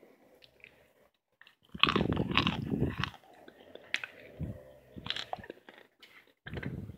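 Biting into and chewing a crunchy chunk of baked cornstarch: a loud run of crisp crunches about two seconds in, then a few shorter crunches.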